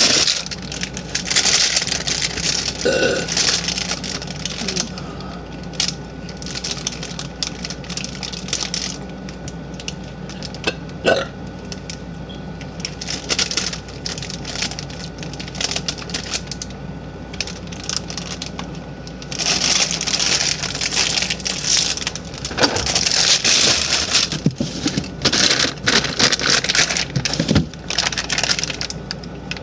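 A young woman burping now and then, with crackling, rustling noises full of sharp clicks in between.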